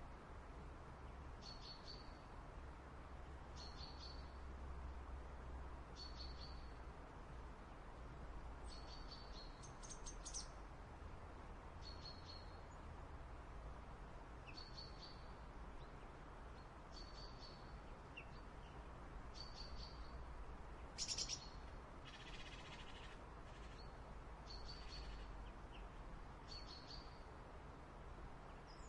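A small bird repeating a short, high call note about every two seconds over a faint steady background hiss, with one louder, brief call about two-thirds of the way through.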